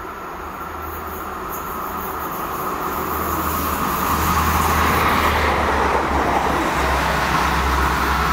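Electric multiple-unit passenger train approaching and passing: wheel and rail noise swells, loudest about halfway through, then holds.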